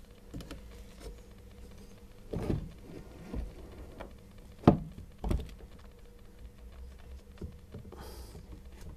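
A few knocks and thuds of plastic and metal parts being handled as a dryer motor with its blower fan is worked into its plastic mount, the sharpest knock about halfway through.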